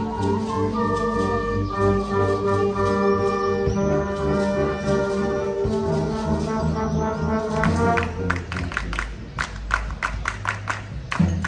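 Wind band playing live: brass and woodwinds hold sustained chords. About eight seconds in, percussion enters with regular sharp strokes over the band.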